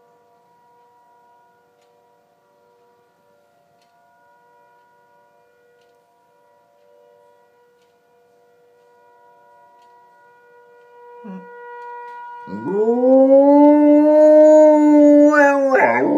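Faint emergency siren sounding as a steady chord of tones. About twelve seconds in, a dog breaks into a loud howl that rises, holds steady for about three seconds, then wavers up and down near the end.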